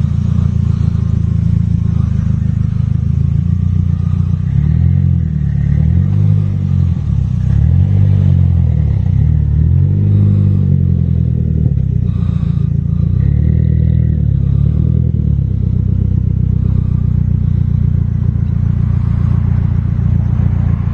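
Nissan Silvia S15's engine running, blipped up and down about six times in quick succession between about 5 and 15 seconds in, then settling back to a steady idle.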